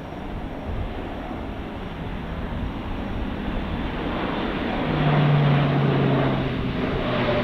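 Airbus A400M's four Europrop TP400-D6 turboprops on a flypast, growing louder to a peak about five seconds in. A low propeller drone drops in pitch as the aircraft goes by.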